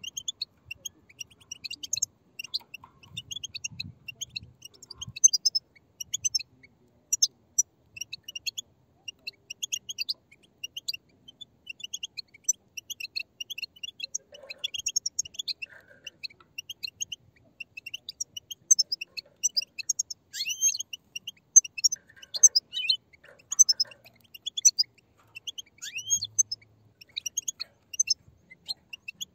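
A flock of European goldfinch chicks chattering together: a dense, unbroken stream of short high chirps and twitters, some sweeping quickly in pitch.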